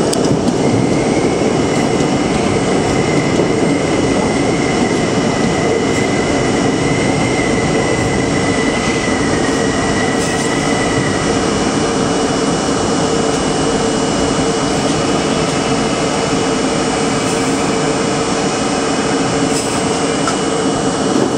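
New York City subway train running through a tunnel, heard from inside the car: a loud, steady rumble and rush of wheels on rail and air. A faint high whine sounds over it for about the first ten seconds.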